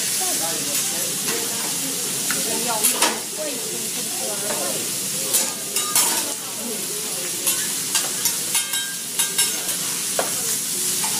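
Food sizzling on a hibachi steel griddle, with a metal spatula striking and scraping the plate: a few sharp clacks about three and six seconds in, then a quick run of taps between about seven and a half and nine and a half seconds.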